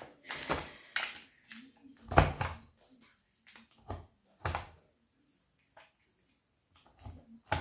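Craft items being handled and set down on a tabletop: a few irregular knocks and clatters, the loudest about two seconds in, with quiet gaps between.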